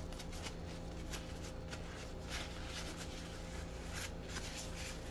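Paper towel rustling softly as it pats and wipes a statue dry, a few faint rubbing sounds over a steady faint hum.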